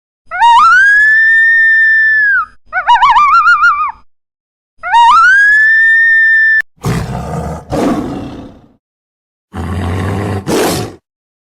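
A siren-like electronic tone for the first six seconds or so: a rising, held wail, a fast warble, then another held wail. It is followed by three deep, rasping roars from a big cat.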